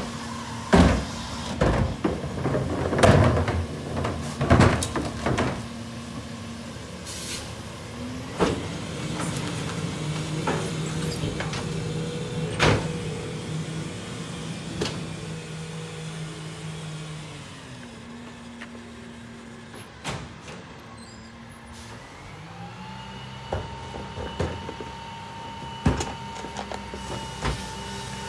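New Way rear-loader garbage truck at work: over the first few seconds a plastic cart knocks loudly against the hopper as it is tipped. Then the truck's engine speeds up to a steady drone to run the packer, once about eight seconds in and again near the end.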